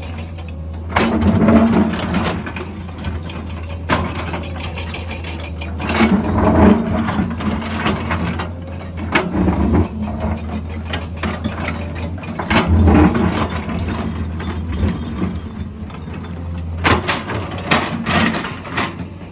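Excavator diesel engine running steadily, with about five irregular bursts of clattering and scraping, the last breaking into a quick run of sharp clicks near the end.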